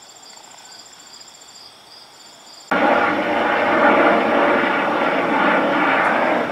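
Crickets chirring quietly. About three seconds in, a helicopter flying overhead comes in suddenly with a loud, steady rotor noise, and it cuts off abruptly near the end.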